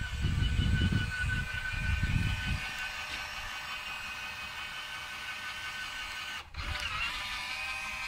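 Geared 12 V cordless-drill motor in a homemade gate-opener arm whining steadily as it swings a wooden gate, run slowed down for calibration. The whine cuts out for a moment about six and a half seconds in and comes back with a wavering pitch; a low rumble covers the first couple of seconds.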